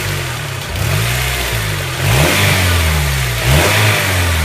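Honda Element's 2.4-litre four-cylinder engine, heard with the hood open, revved with several quick throttle blips; the pitch climbs and falls back each time, with the strongest blips about two and three and a half seconds in. It is being revved to test a light ticking from the top of the engine, which the owner suspects is a valve out of adjustment and which does not grow with the revs.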